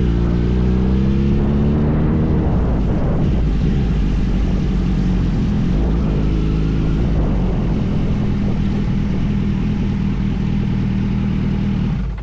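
Kawasaki Z900RS inline-four engine on the move: its note climbs in pitch as the bike accelerates over the first couple of seconds, then runs hard and steady at speed. The level drops suddenly at the very end.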